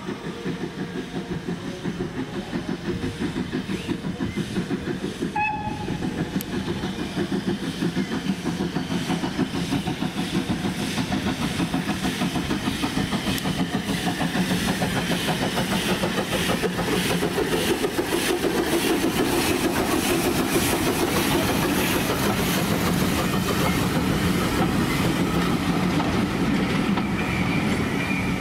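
Manning Wardle L class 0-6-0 saddle tank steam locomotive working a train of carriages: fast, even exhaust beats growing louder as it approaches and passes, with the carriage wheels clicking over the rail joints. A short whistle note sounds about five seconds in.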